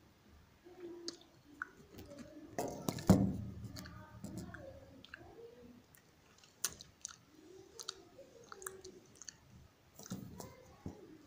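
A cat chewing and eating chicken sausage, with many short irregular wet clicks and crunches, and a louder knock and rustle about three seconds in.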